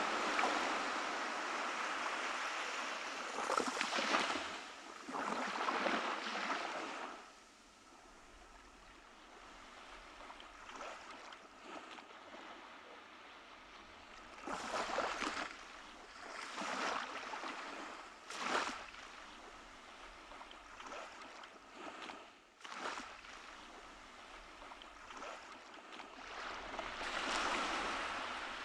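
Small waves breaking and washing up a beach: a long wash of surf, then a quieter stretch with a few separate surges of water running up the sand, building again near the end.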